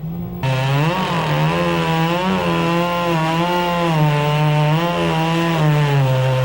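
Chainsaw engine speeding up sharply about half a second in and cutting into a log, its pitch dipping and rising as the load on the chain changes.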